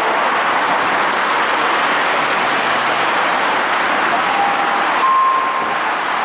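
Steady road-traffic noise beside an elevated station platform where a subway train stands. Near the end come two short electronic tones, the second a little higher and longer.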